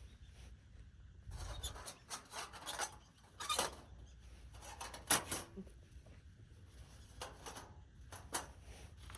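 Handling noises: irregular rubbing and scraping with several sharp light knocks, like camp cookware and utensils being moved about.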